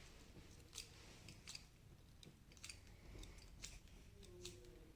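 Faint, scattered clicks and rustles of twisted-pair Ethernet cable wires being drawn through the grooves of a crimping tool to straighten them.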